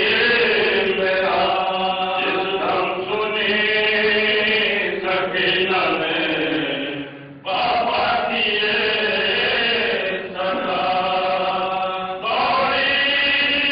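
Men's voices chanting a marsiya, a Shia Urdu elegy, in long melodic sustained lines, with a brief break between lines about halfway through.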